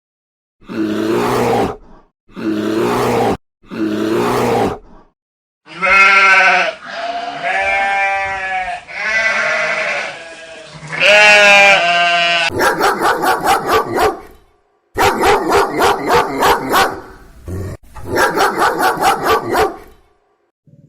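Goats bleating: several long, wavering bleats in the middle, between two other runs of animal calls, four short repeated calls at the start and rapid pulsing calls near the end.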